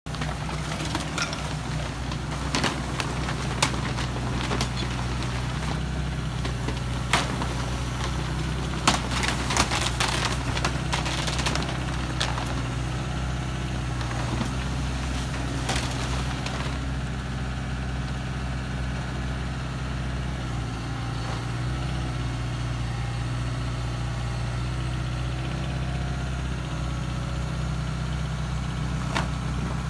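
Hyundai 140 crawler excavator's diesel engine running steadily, with scattered sharp knocks and crackles in the first half or so as the bucket works the pool liner and debris.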